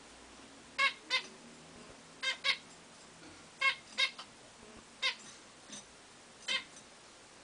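Zebra finches giving short nasal calls, about eight in all, mostly in quick pairs every second or so.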